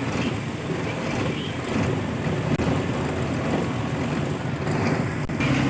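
Inside the cabin of an express bus on the move: steady engine and road noise with a low rumble.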